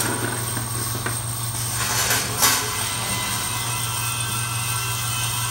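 Step feeder for axle shafts running: a steady machine hum with metal rods clinking and clattering as the steps lift them, the loudest clack about two and a half seconds in.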